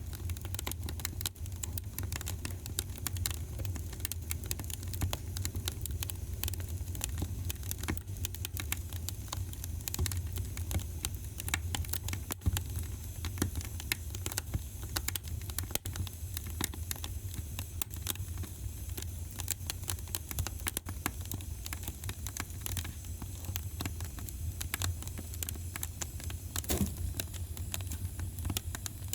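Wood fire in a fireplace crackling and popping steadily, dense small snaps over a low rumble of the flames.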